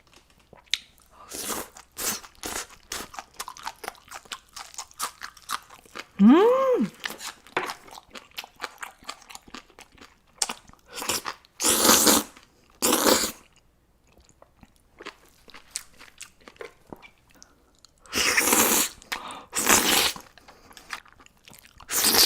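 Close-miked mukbang eating: steady wet chewing with many small clicks, broken by several loud crunchy bites about halfway through and again near the end. About six seconds in there is a short hum that rises and falls.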